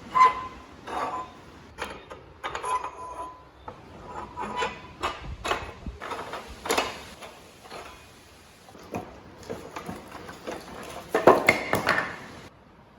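Irregular metallic knocks and clanks, a few ringing briefly, with a dense burst of clatter near the end, as metal parts are handled.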